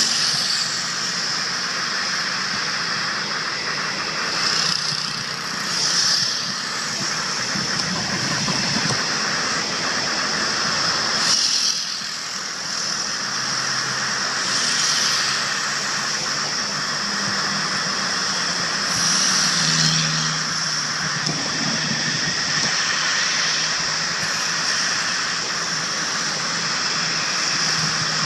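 Airbus A320-family airliner's jet engines at taxi thrust: a steady high whine over a rush of engine noise, swelling briefly now and then.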